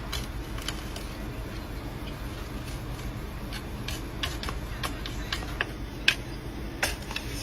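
Scattered light clicks and ticks at an uneven pace over a low steady hum, the two sharpest near the end.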